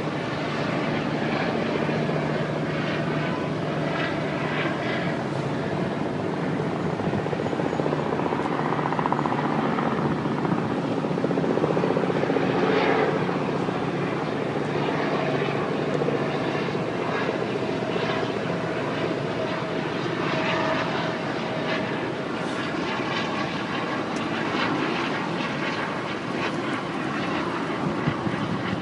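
Helicopter running steadily, a continuous engine and rotor drone that swells slightly about twelve seconds in.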